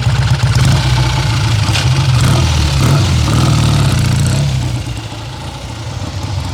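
1965 Triumph Trophy 650's parallel-twin engine running with a pulsing exhaust, then dropping to a quieter level about three quarters of the way through.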